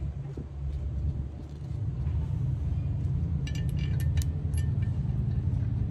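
Steady low rumble of an engine running. A short run of light metallic clinks comes about three and a half to four and a half seconds in.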